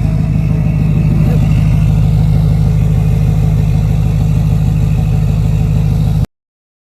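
Duramax 6.6-litre V8 turbodiesel idling steadily with a rapid, even low-pitched beat, then cutting off abruptly to silence near the end.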